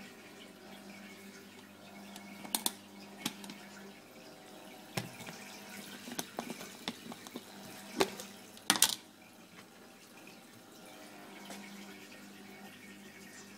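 Aquarium filter running with a steady hum and trickle of water. In the middle comes a string of sharp clicks and rattles from a plastic jar of fish-food pellets being handled, loudest about two-thirds of the way through.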